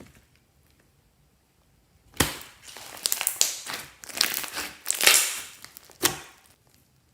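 Clear slime being squished and worked by hand after a short pause: a run of sticky squelches full of sharp clicks and pops, with the loudest ones around the middle.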